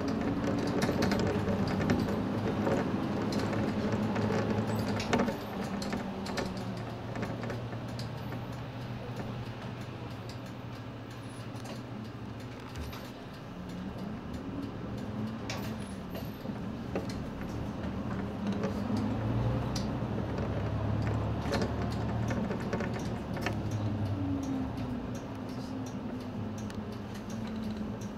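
Inside a Nissan Space Runner city bus: the engine runs as the bus drives slowly, its pitch rising and falling with speed and growing deeper and stronger for a few seconds near the end. Scattered clicks and rattles come from the cabin throughout.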